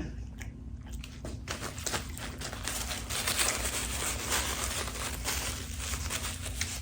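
Close-miked chewing of a Big Mac: a dense run of wet, crackly mouth clicks and smacks, over a faint steady hum.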